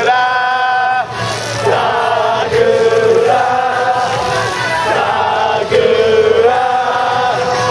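A crowd of football supporters singing a chant together in unison, in long held notes about a second each.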